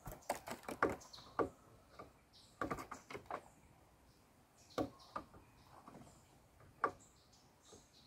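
Irregular light taps and clicks of birds hopping and pecking on a corrugated fibre-cement roof sheet, in short quick clusters near the start and around three seconds in, then single taps spaced out.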